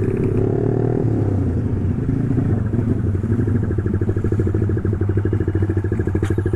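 Honda CB150R's single-cylinder engine through a BSS aftermarket exhaust, running at low, steady revs with an even pulsing exhaust note. The revs ease down slightly in the first second, then hold steady.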